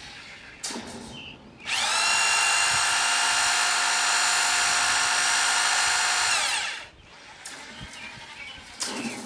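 Half-inch electric drill run at full speed for about five seconds, spinning up quickly and winding down, twisting a long taut length of wire clamped in its chuck to take the temper out and straighten it. A short knock comes shortly before it starts.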